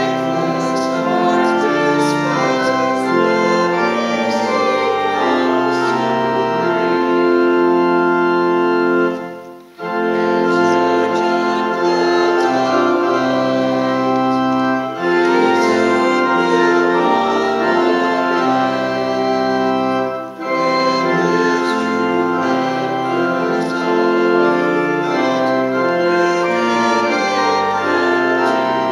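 Church organ playing a hymn in sustained chords, with a congregation singing along. The music breaks off briefly twice, about nine and a half and twenty seconds in, between phrases.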